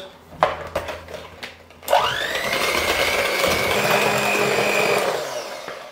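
Electric hand mixer beating a cookie dough: a few knocks as it is handled, then about two seconds in the motor spins up with a quick rising whine, runs at a steady high whine for about three seconds, and winds down near the end.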